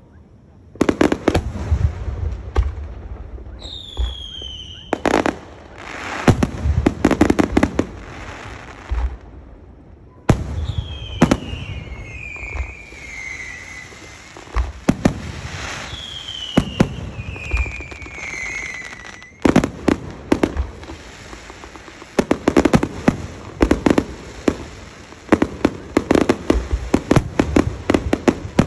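Aerial fireworks show: repeated bursts of bangs and crackling salvos, heaviest in a few clusters. Several falling whistling tones run through it.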